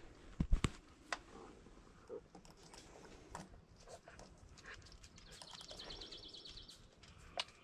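Meter test probes clicking and tapping against the metal terminals of a capacitor: a few sharp clicks in the first second, then scattered faint taps. A faint, fast high trill sounds for about a second and a half around five seconds in.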